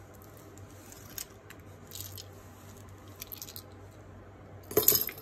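Small jewelry pieces and packaging being handled: faint clicks and rustles, with a louder, brief handling noise near the end.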